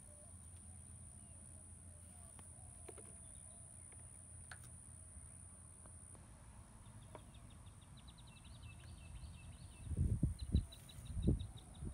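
Faint outdoor ambience: a steady low rumble and a thin, steady high whine, with short runs of faint, rapid chirps from about seven seconds in. Several low thumps come about ten seconds in and are the loudest sounds.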